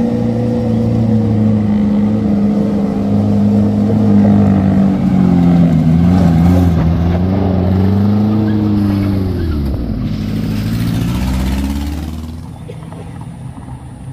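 Mitsubishi L300 pickup's engine pulling hard up a rough, steep gravel climb, its pitch wavering. Its pitch falls sharply as it passes close by about ten seconds in, and then the sound fades away.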